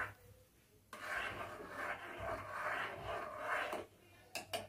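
A metal spoon scraping around a metal pot of milk as it is stirred, in uneven strokes, to keep the heating milk from boiling over. Two or three quick knocks near the end.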